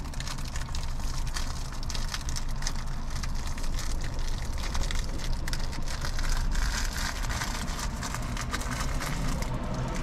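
Dense crackling and rustling over a steady low rumble.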